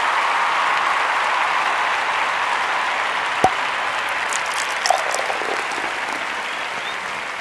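Applause: dense, steady clapping that slowly fades toward the end, with a single sharp click a little past three seconds in.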